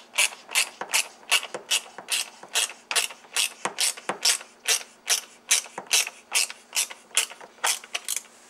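Hand ratchet wrench clicking in an even rhythm, about two to three times a second, as it is swung back and forth to tighten down the battery hold-down bracket.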